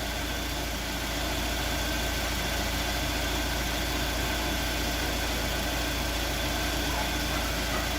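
2003 Neon's four-cylinder engine idling steadily during warm-up, with the electric radiator fan still off because the coolant has not reached its switch-on temperature.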